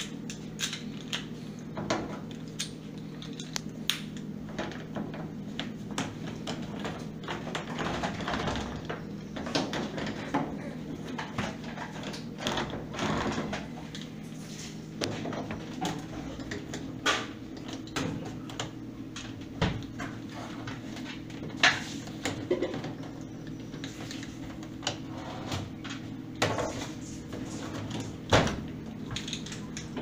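Scattered clicks, knocks and rattles of a screwdriver and the plastic cabinet parts of an LG top-load washing machine as it is taken apart, over a steady low hum.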